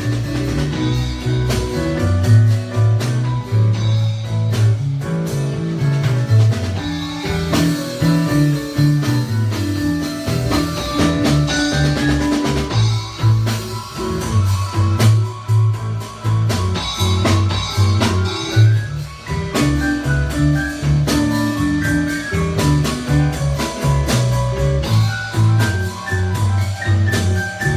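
A blues band playing an instrumental passage with guitar, drum kit and a low, repeating bass line, with no singing.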